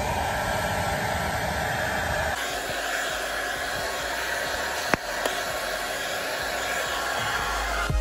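Handheld electric hair dryer blowing steadily onto a horse's wet leg feathering, its sound shifting about two and a half seconds in. A single sharp click about five seconds in.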